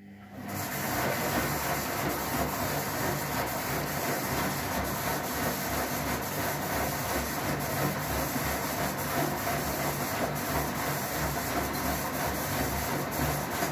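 Gorenje SensoCare washing machine drum tumbling during a wash: the drum motor starts up, the load and water slosh and splash around in the turning drum, and it winds down at the very end. It is a test wash on a newly fitted control board.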